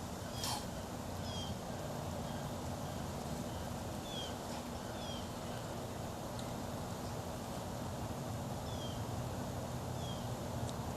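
Gopher tortoise sneezing once, a short hissing puff about half a second in. A small bird chirps repeatedly in short falling notes over a steady low background hum.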